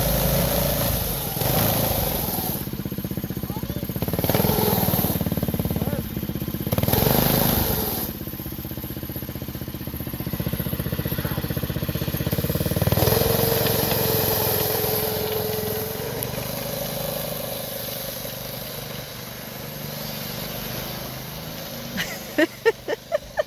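Snowmobile engine running, its note rising and swelling as it revs and passes several times, then easing off. A quick run of sharp sounds comes near the end.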